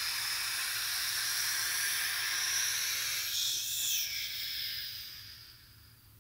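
A steady high hiss with a faint whistling edge, a brief sweep about three and a half seconds in, then fading away over the last two seconds.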